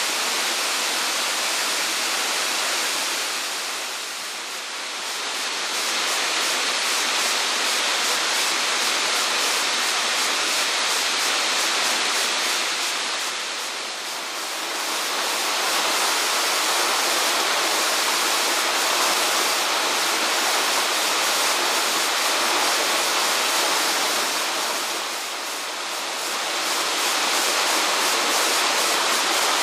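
Waterfall pouring steadily: a dense, rushing hiss of falling water, dipping briefly in level three times.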